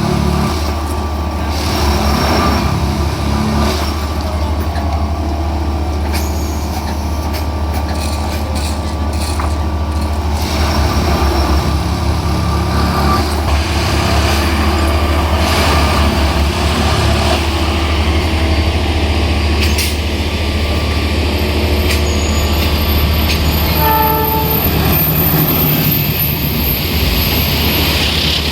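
Plasser & Theurer track-lifting machine running, its diesel engine giving a steady low hum with scattered clicks and knocks of the working gear. A short pitched tone sounds about 24 seconds in.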